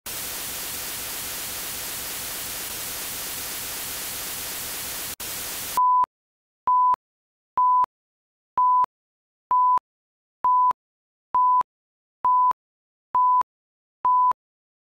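Hiss of TV-style static for about six seconds, with a brief dropout near five seconds, then cutting off abruptly. Then ten short electronic beeps at one steady pitch, about one a second, as in a video countdown leader.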